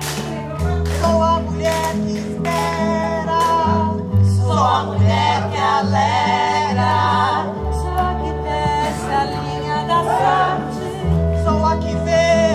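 Background music: a song with voices singing over a bass line and held instrumental tones.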